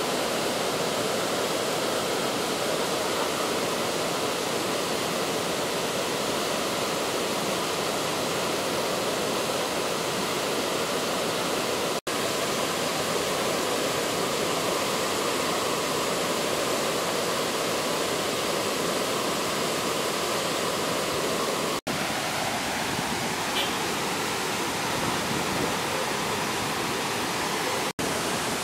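Chappara waterfall in monsoon spate: heavy falling water rushing steadily, cutting out for an instant three times.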